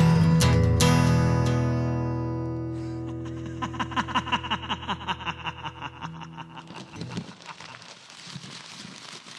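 Instrumental outro of a home-recorded pop song. A final chord on guitar and bass rings out and fades over the first few seconds. Then a quickly picked guitar figure of about four notes a second comes in and fades away, stopping just at the end.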